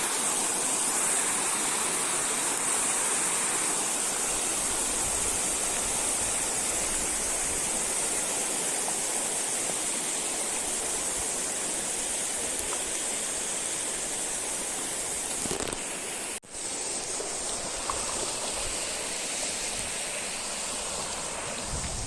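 River water rushing steadily, an even, unbroken wash of noise, cut off for an instant about two-thirds of the way through.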